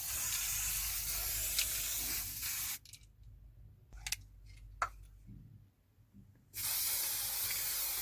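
Aerosol spray can spraying in a long, even hiss that cuts off sharply about three seconds in; after a pause with a couple of small clicks, a second long spray starts near the end. The spraying is a foley take for spray painting.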